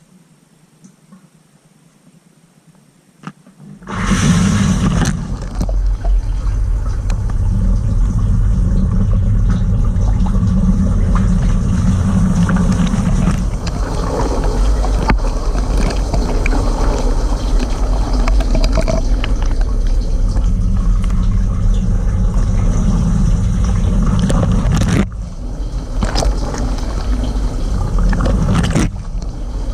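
Cylinda dishwasher starting its rinse: after about four seconds of low hum the circulation pump kicks in suddenly and water sprays and churns loudly around the tub, heard from inside the machine. The spray falters briefly twice near the end.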